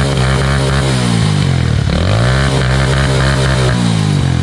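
Single-cylinder engine of a Zhujiang 150cc motorcycle, just rebuilt with a replacement crankshaft, revved hard and held steady at high revs, then let drop back. This happens twice.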